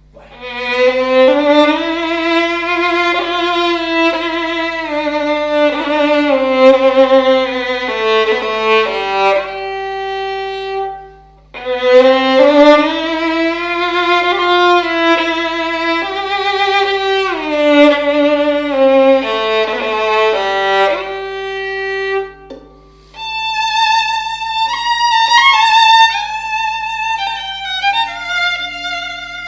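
Solo violin made by Giacomo Margiacchi, bowed with a wide vibrato in a sound test. Two similar phrases start low and climb, each ending in a brief pause, then a higher, brighter passage follows about two thirds of the way through.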